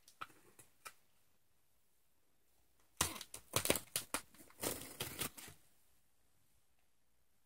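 Bubble wrap and plastic packing crinkling and rustling as the package's contents are handled, a busy burst of crackling lasting about two and a half seconds from about three seconds in, after a few faint clicks.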